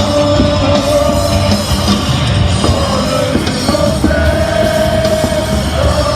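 Baseball stadium crowd singing a cheer song over loud amplified music, with long held sung notes.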